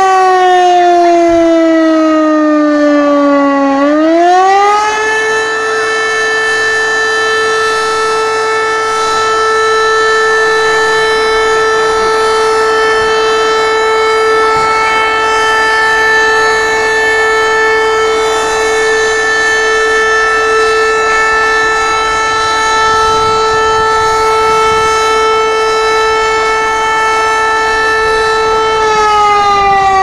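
Volunteer fire station's alarm siren sounding to call out the crew for an emergency turnout. It winds down in pitch, rises quickly back up about four seconds in, holds a steady tone for about 25 seconds, then starts winding down again near the end.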